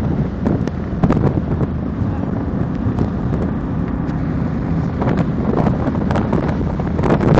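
1959 Alfa Romeo Giulietta Spider's twin-cam four-cylinder engine running steadily at highway cruising speed, with road noise and wind buffeting the microphone in the open cockpit. The buffeting grows stronger over the last couple of seconds.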